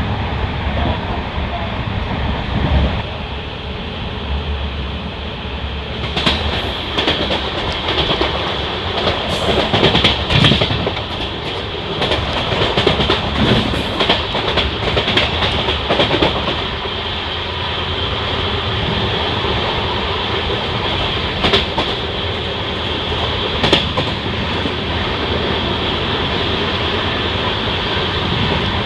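Passenger train running along the track: a steady rumble of the coach wheels on the rails, with clicks and rattles over rail joints, thickest from about six seconds in to about sixteen, then a couple of single sharp clicks.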